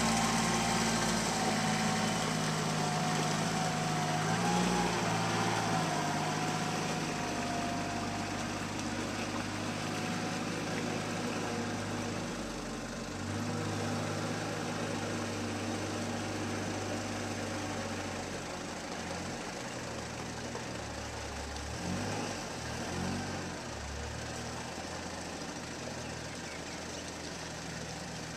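Diesel engines of small Kubota tractors running. The nearer tractor's engine is loudest at first and fades over the first half as it moves away, leaving a steadier, quieter idle from the tractor stuck in the mud.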